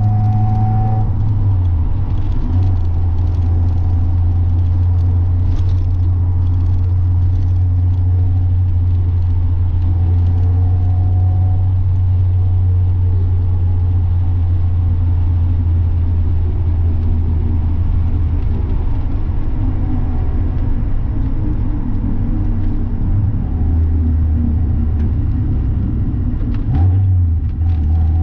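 Mazda Miata's four-cylinder engine and exhaust droning steadily while driving. Near the end the drone drops lower for a few seconds, dips briefly, then picks back up.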